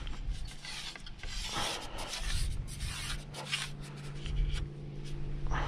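Rustling and rubbing of fishing tackle being handled close to the microphone, with scattered light clicks.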